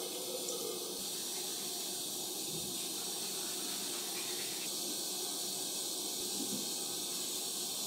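Water running steadily from a bathroom sink faucet into the basin, an even rushing hiss.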